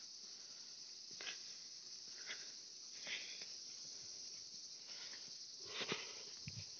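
Steady high-pitched drone of insects in wet hillside vegetation, with a few brief sharper sounds, and footsteps on a dirt track starting near the end.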